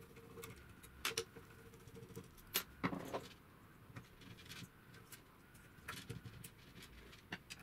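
Faint, scattered clicks and taps of small metal parts: screws being undone with a screwdriver from a vacuum cleaner motor's brush gear and put down into a plastic tub.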